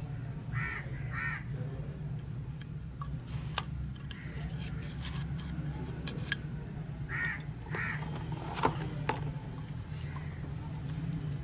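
A crow cawing in two pairs of calls, one pair about a second in and another about seven seconds in, over a steady low hum. Light clicks from plastic oil-filter parts being handled.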